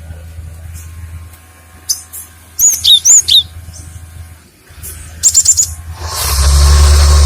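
Cinereous tit (gelatik batu) calling: a few sharp, down-slurred high notes about a third of the way in, then a quick run of high notes later, over a low steady hum. Near the end a loud rushing noise lasting over a second is the loudest sound.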